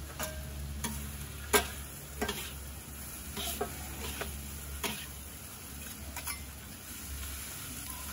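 Vegetables sizzling in a hot carbon steel wok while two metal wok spatulas stir and toss them, with irregular sharp clicks and scrapes of the spatulas against the wok, the loudest about one and a half seconds in.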